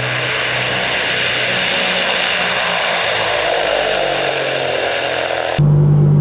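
Tupolev Tu-95's four Kuznetsov NK-12 turboprops, driving contra-rotating propellers, running at takeoff power as the bomber lifts off and passes, a loud noisy sound whose pitch slowly falls. About five and a half seconds in it cuts abruptly to the steady low propeller drone heard from inside the aircraft in flight.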